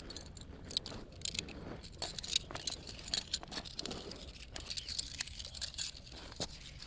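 Tent gear being handled while the tent is taken down and packed: a quick, irregular run of light clicks, rattles and rustles.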